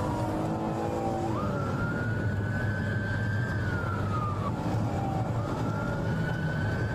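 Police car siren wailing, its pitch rising and falling in slow sweeps, over a steady low drone of engine and road noise.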